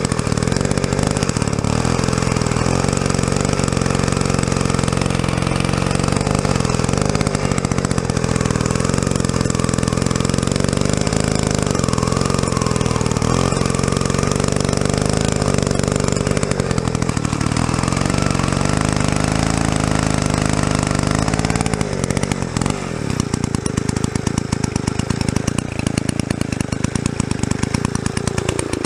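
Druzhba-4 Elektron two-stroke chainsaw cutting a hard stump, its engine held at low revs and labouring under heavy load. The sound turns rougher about 22 seconds in, and the revs rise sharply near the end. The chain cuts poorly in the hard wood, which the owner puts down to a chain that has most likely dulled and stretched.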